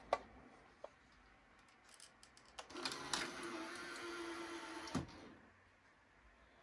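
Sony SL-HF950ES Betamax recorder's motorised cassette compartment: a click, then about two and a half seconds of motor whirring with a steady hum as the compartment closes, ending in a clunk as it seats.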